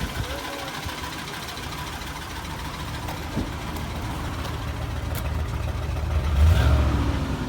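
Chevrolet Silverado's 5.3 L Vortec V8, which has a rod knock, idling shortly after a cold start, then revved briefly about six seconds in before settling back.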